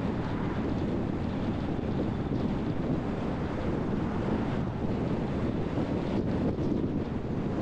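Steady road noise of a car driving along: a low, even rumble of tyres and wind buffeting the microphone.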